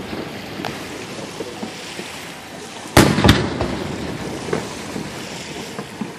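Fireworks bursting overhead: a crackling haze with scattered small pops, then a loud boom about three seconds in, followed closely by a second.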